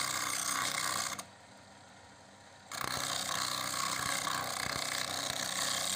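Edge of a wooden plate being sanded against a spinning abrasive disc on an electric-motor-driven shaft: a steady rasping, grinding noise. It drops away about a second in and comes back near three seconds.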